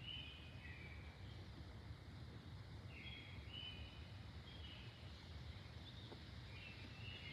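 Birds singing faintly in short chirping phrases, three times, over a low steady rumble.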